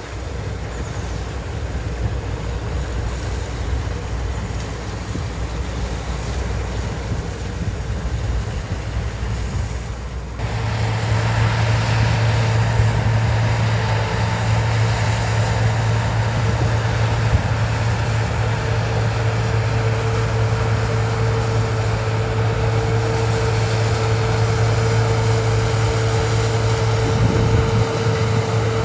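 Diesel engine of harvest machinery running steadily, with wind buffeting the microphone. About ten seconds in, the engine sound becomes suddenly louder and steadier, with a low hum and a higher steady tone.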